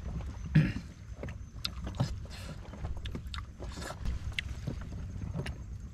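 Water lapping and knocking around a floating platform at sea, with a steady low rumble. Short clicks and brief rustles are scattered through it, the loudest about half a second in.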